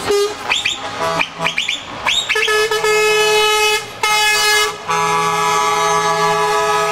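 Truck air horns blowing: several short blasts that swoop up in pitch as they start, then long, held multi-note chords, with a short break before the last one.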